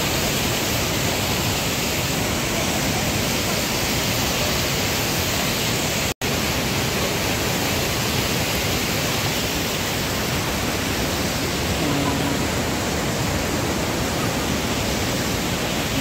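Swollen mountain river rushing over rocks in whitewater rapids: a steady, dense rush of water, cutting out for an instant about six seconds in.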